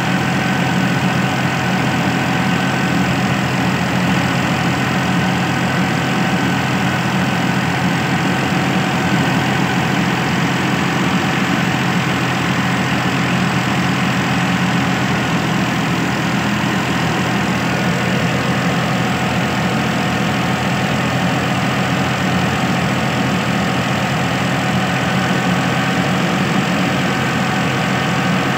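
Fiat 480 tractor's three-cylinder diesel engine running steadily, powering a thresher that is being fed bundles of cut crop, the engine and threshing drum making a constant loud drone.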